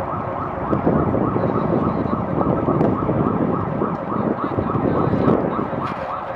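A siren in fast yelp mode, its pitch sweeping up about three times a second, over a loud low rumble.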